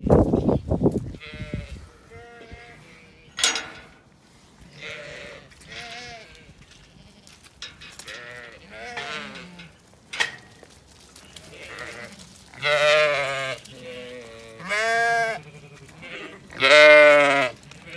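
Zwartbles ewes bleating again and again, each call a wavering, quavering bleat, the calls coming louder and closer over the last few seconds. A brief loud noise comes right at the very start.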